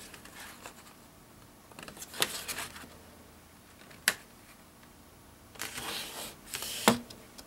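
Manila folder card being handled and pressed flat with the hands to stick a taped flap down: soft rustling and brushing of the card, a single sharp click about four seconds in, and a knock near the end.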